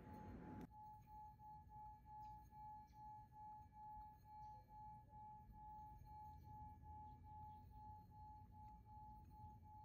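A faint, sustained meditative tone like a singing bowl, held on one pitch with a gentle wavering pulse about twice a second. A soft hiss under it cuts off under a second in.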